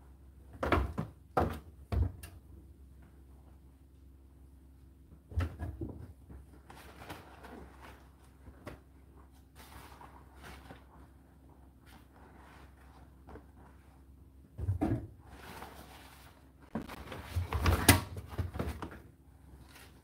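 Indesit IDC8T3 condenser tumble dryer running, with a steady hum while the drum turns. Irregular thuds and knocks come from the load tumbling in the drum: a few early on, one in the middle, and a louder cluster near the end.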